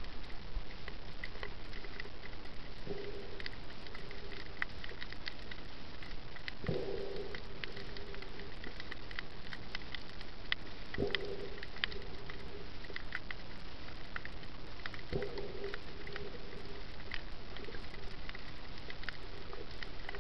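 Underwater ambience: a constant patter of scattered faint clicks over a steady hiss, with a short low moan with a sharp start about every four seconds, four in all.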